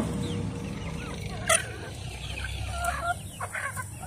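A flock of chickens clucking while pecking at feed, many short calls overlapping, with one sharper, louder call about a second and a half in.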